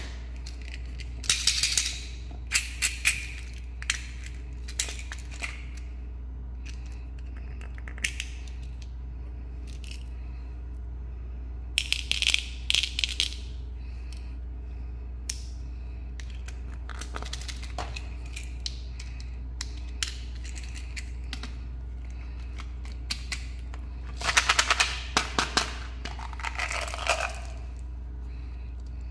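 Plastic candy containers being handled and opened, with sugar-coated chocolate beans rattling inside and small hard gum pellets clattering into a hand, in short bursts of clicks and rattles separated by pauses. A steady low hum runs underneath.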